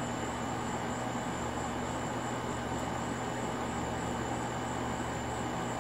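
Steady outdoor night background: a constant low hum and hiss with a steady high-pitched tone above it, and no distinct sounds.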